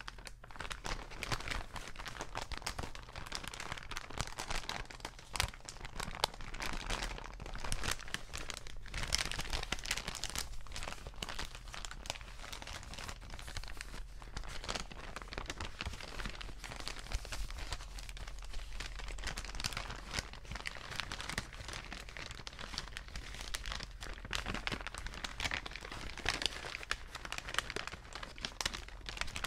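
Paper bags being crinkled and crumpled by hand: a dense, irregular, continuous crackling.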